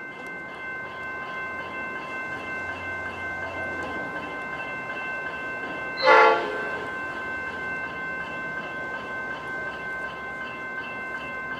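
A G class diesel-electric locomotive hauling a steel freight train sounds one short horn blast about six seconds in, the loudest thing here. Under it is a steady ringing at several pitches, typical of level crossing bells, and the approaching train grows louder over the first few seconds.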